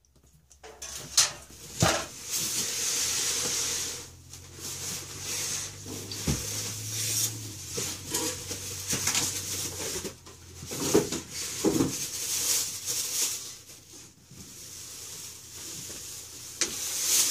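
Plastic wrapping rustling and crinkling around a tankless water heater as it is handled and boxed, with several sharp knocks of the unit being set down.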